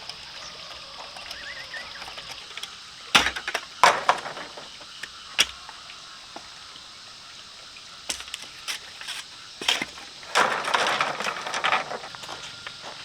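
Bamboo being worked: a scatter of sharp cracks and knocks, then a denser splintering crackle lasting about a second and a half near the end.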